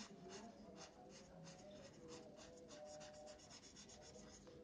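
A marker scratching on notebook paper in quick back-and-forth colouring strokes, several a second, faint.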